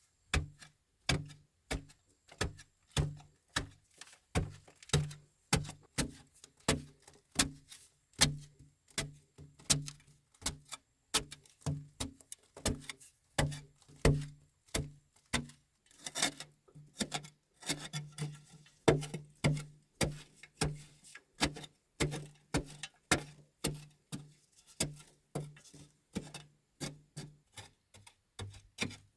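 A steady series of sharp knocks, a little under two a second, each with a short low thud, like repeated blows of a tool on wood.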